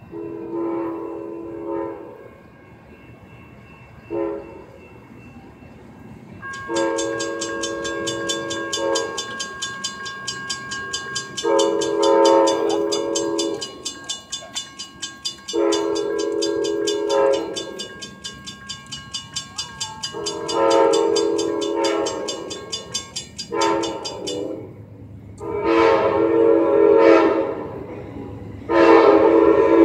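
Amtrak train horn sounding a series of long and short blasts as the train approaches the grade crossing, growing louder toward the end. Through the middle, a grade-crossing signal bell rings rapidly, then cuts off a few seconds before the end.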